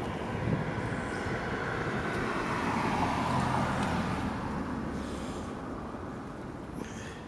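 A vehicle passing on a road: a broad rush of tyre and engine noise that swells to its loudest about three seconds in, then fades away.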